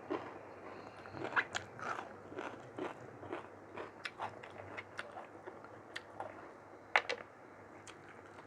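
Close-miked chewing and mouth sounds from eating mutton curry with rice: a run of irregular short wet clicks and smacks, with one sharper click about seven seconds in.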